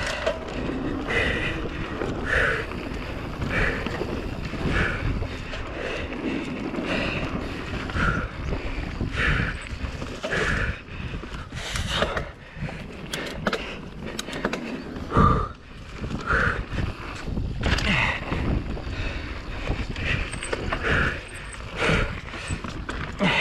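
Full-suspension enduro mountain bike ridden hard down a dirt trail: tyres rumbling over rough ground and the bike rattling and knocking, with a run of sharp clatters about halfway through. Wind buffets the helmet-mounted mic.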